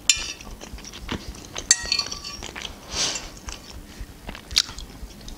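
Metal fork clinking and scraping on a plate while picking up food: a few sharp clinks, the one about two seconds in ringing briefly, and a short scrape around three seconds in.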